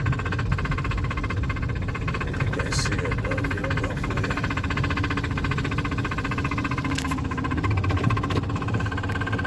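Honda Civic engine running steadily with a rapid, even knocking from inside it, which the owner describes as metal grinding inside the engine.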